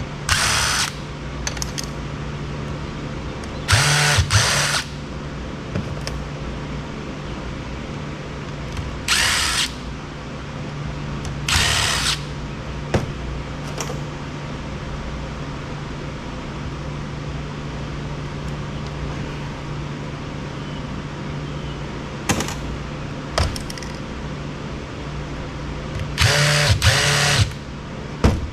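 Power drill-driver running in repeated short bursts of about half a second to a second, driving screws out of a Roomba robot vacuum's plastic housing, over a steady low hum.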